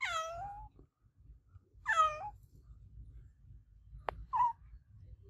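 Domestic cat meowing: two loud meows about two seconds apart, each falling in pitch. Near the end comes a sharp click, then one short, quieter call.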